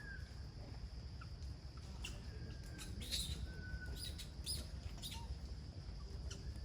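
Animal calls: scattered short, high-pitched chirps and squeaks, with a few thin whistled notes. Underneath are a steady high hum and a low rumble.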